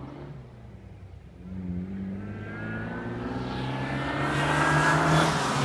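MG TF sports car's four-cylinder engine heard through its new muffler as the car approaches under acceleration. The engine note rises in pitch and grows steadily louder, loudest near the end.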